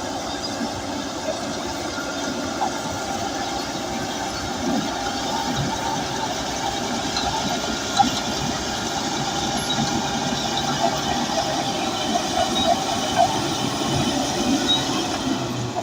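Bulldozer's diesel engine running steadily under load, with the metallic clatter of its steel tracks and a sharp knock about 8 seconds in.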